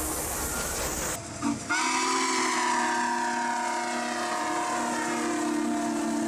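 Steam locomotive running by with a heavy hiss and rumble, cut off about a second in. Shortly after, a multi-chime steam whistle sounds one long steady chord.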